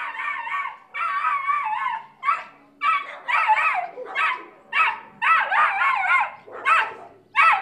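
Dog barking and howling over and over in short, loud calls with a wavering pitch.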